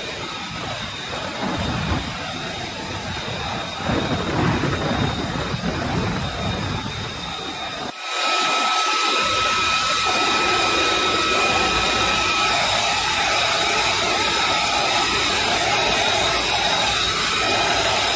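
Steady rushing whine of a jet aircraft's turbine running on the flight line, with thin high steady tones. About 8 seconds in, the sound cuts abruptly and comes back louder and steadier.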